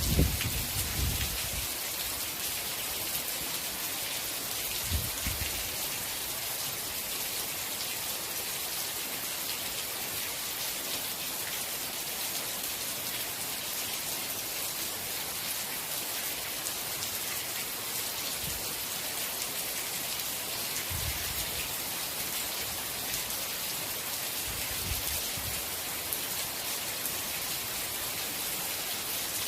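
Steady rain falling, an even hiss of many drops. Brief low rumbles come and go a few times, the strongest at the very start.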